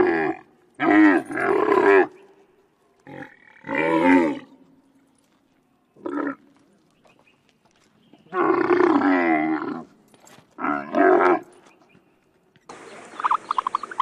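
Camel calling: a series of about eight loud, pitched groaning calls, some short and some drawn out over a second. About a second before the end, a different animal call with a rapid pulsing rattle cuts in.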